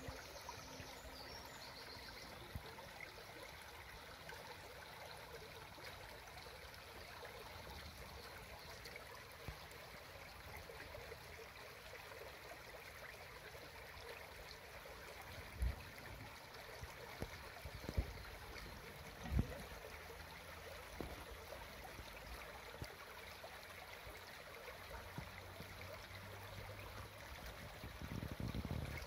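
Shallow woodland stream running over stones, a steady faint rush and trickle of water. A few low thumps come about halfway through.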